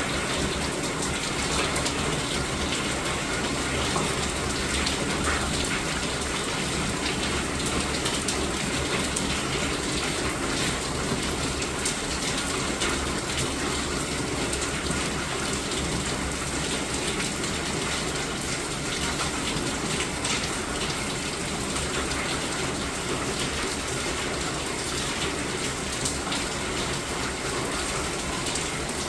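Steady rain falling, a constant hiss of water with many small drop ticks throughout.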